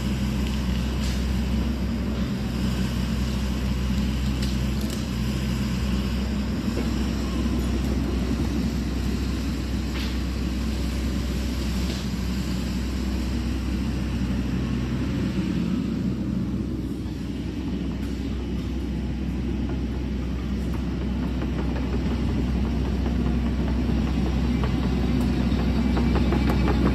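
Sany SY80 excavator's diesel engine running steadily while it works, with a few sharp cracks along the way; it grows louder over the last few seconds as the machine tracks closer.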